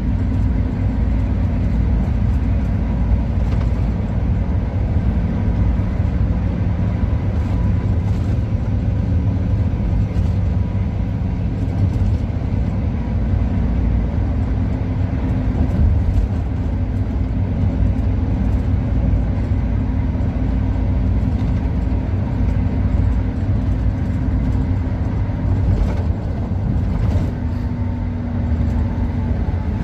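Steady drone of an intercity coach's engine and tyres, heard from inside the cab while cruising on a highway, with a faint steady whine and a few light knocks.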